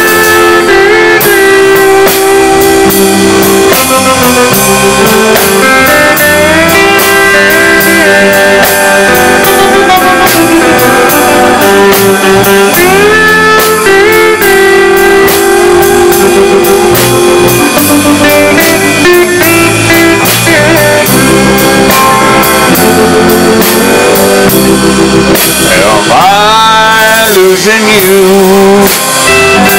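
Live country band playing a slow song: electric guitars and drums, with a steel guitar sliding between notes.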